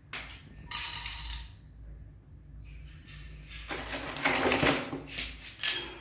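Teflon tape and a small chrome pipe fitting being handled, with scratchy rustling and crackling. Near the end a sharp, ringing metal clink as a steel spanner is set down on the tiled floor.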